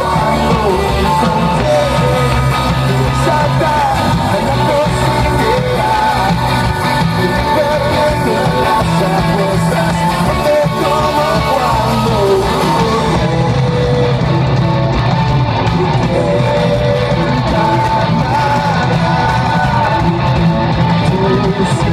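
Live rock band playing loud: electric guitars and drums, heard from within the audience.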